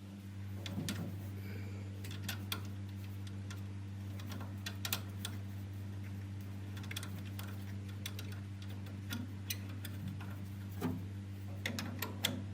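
Irregular light clicks and taps of small metal parts being handled and screwed together as a CO₂ laser's lens tube and nozzle are reassembled, over a steady low hum.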